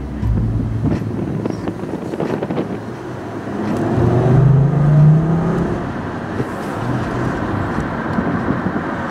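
Car engine and road noise heard from inside the cabin: the engine pulls harder with a rising pitch from about three and a half seconds in, loudest around five seconds, then settles into steady tyre and road noise while cruising.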